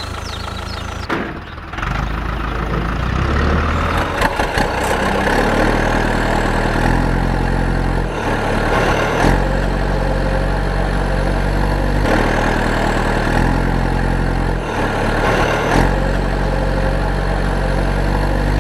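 Engine running steadily, its pitch shifting up and down in steps every second or two, as with machinery working under changing load.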